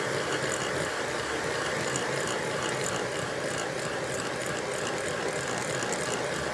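Electric mixer running steadily, beating muffin batter.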